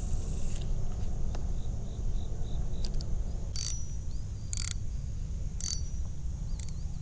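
Piscifun Flame spinning reel being worked after a cast: three sharp mechanical clicks about a second apart in the second half, over a steady low rumble.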